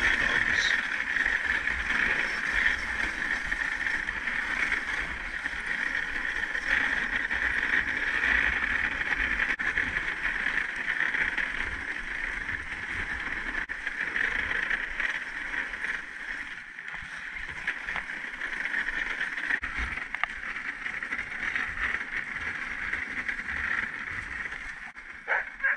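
Dog sled runners hissing steadily over a packed snow trail as a husky team pulls the sled along, with an uneven low rumble underneath. Near the end a few sharp dog barks begin.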